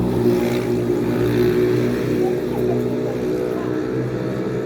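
A motor running steadily at one unchanging pitch.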